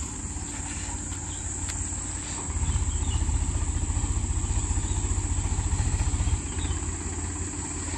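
Tractor engine running with a fast low pulse as the tractor drives along the track, growing louder about two and a half seconds in and easing off again near the end. Insects chirp steadily throughout.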